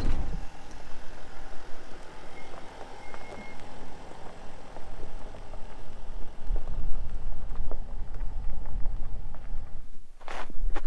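Mercedes Sprinter Sportsmobile van driving on a gravel road, a low rumble of engine and tyres that rises and falls.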